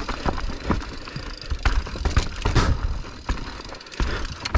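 Mountain bike riding over rough, technical trail: irregular knocks and clatter from tyres, chain and frame over a low rumble.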